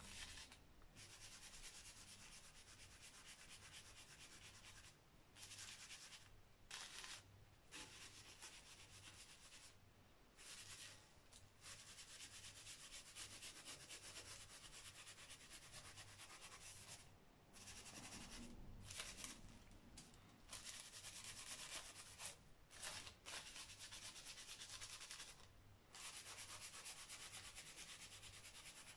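Faint rubbing of a cloth pouch of charcoal over pricked tracing paper on a paper plate, pouncing a stencil through its dotted holes. It makes a steady scratchy hiss, broken by brief pauses as the hands shift.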